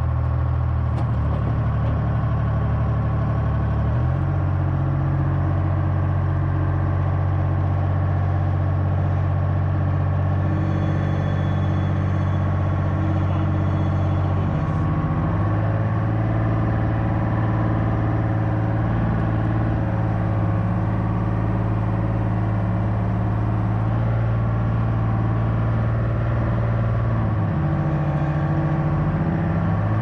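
Dynahoe 160 backhoe engine running, heard from the operator's cab as the machine is driven. The engine note shifts to a new steady pitch about four seconds in, again about halfway through, and twice near the end.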